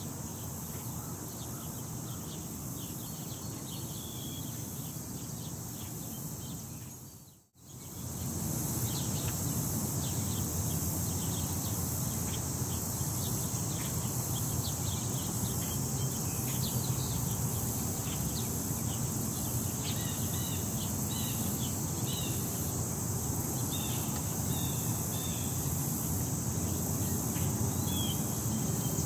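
Outdoor ambience: wind rumbling on the microphone under a steady high hiss, with birds chirping now and then. The sound fades out briefly about seven seconds in and comes back louder, with more frequent chirps.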